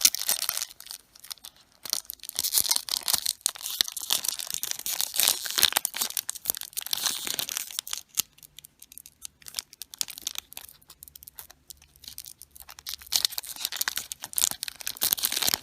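A trading-card booster pack wrapper being crinkled and torn open by hand, with handling of the packet and cards. The crinkling comes in long busy stretches, eases off about halfway through, then picks up again near the end.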